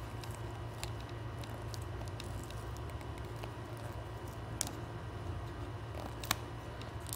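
Tweezer tips and fingers working at a laptop LCD panel's ribbon-cable connector and its tape: scattered faint clicks and ticks, the sharpest about four and a half and six seconds in, over a steady low hum.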